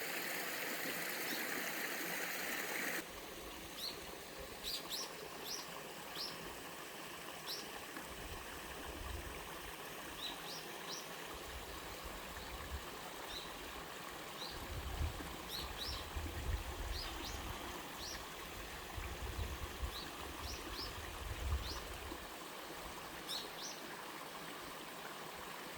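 Mountain stream water rushing steadily over a small three-tier sliding waterfall. About three seconds in, the water sound becomes quieter and changes, and small birds chirp repeatedly over it, with occasional low rumbles.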